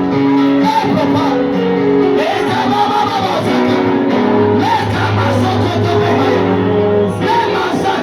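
Live Swahili gospel worship song: voices singing over a band with guitar, with a deep held bass note coming in about halfway through.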